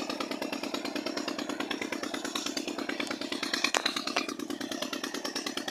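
An engine running steadily with a fast, even beat, with one sharp click about three-quarters of the way through.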